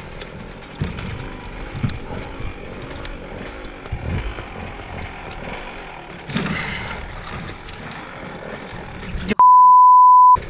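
Husqvarna WR 125 two-stroke dirt bike engine running low under knocks and scuffs as the bike is worked among fallen logs. About a second before the end, all other sound is cut out for a loud, steady one-second censor bleep.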